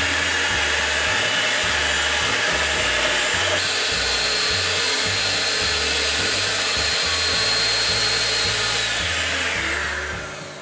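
Electric hand mixer running steadily at speed, its beaters whipping egg whites in a stainless steel bowl up to stiff peaks. The motor winds down and stops near the end.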